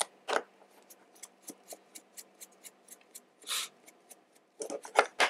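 A screwdriver backing out the small screw that holds the blowback housing unit in an airsoft Glock 17 slide: light clicks at about four a second, a short hiss about three and a half seconds in, then a few light knocks near the end.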